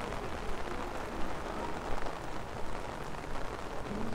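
Steady rain falling on a wet city street: an even hiss with a low rumble underneath.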